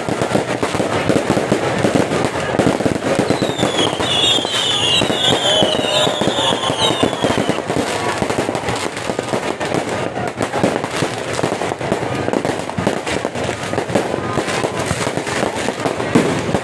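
New Year fireworks going off without a break: dense crackling and popping, with a warbling high whistle from about four to seven seconds in.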